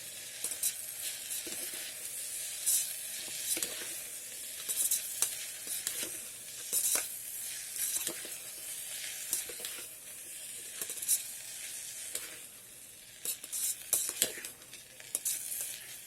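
Sauced pasta being stirred in the metal pot of an electric kettle: irregular scrapes and clicks of the utensil against the pot over a steady hiss.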